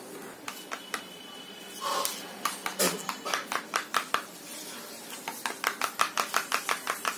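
Raw eggs being beaten with a metal spoon in a paper bowl: quick clicking strokes, about five a second, in two runs with a short pause about four seconds in.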